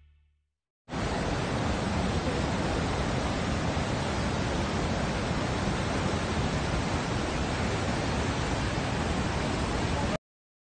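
Steady, even rush of falling water from Niagara Falls, starting abruptly about a second in and cutting off suddenly near the end.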